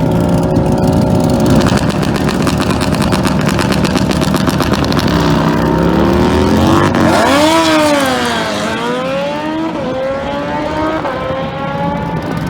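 Turbocharged Suzuki Hayabusa motorcycle engine running loud. Its pitch swings up and down about halfway through, then climbs in steps with two short drops in the last few seconds.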